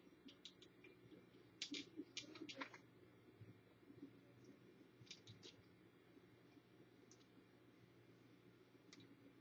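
Faint scattered clicks and taps of a hand-held metal vape mod, a sonic screwdriver replica, as its parts and buttons are worked in the hands. The clicks come in small clusters, loudest about two seconds in, with a few lone ones later over near silence.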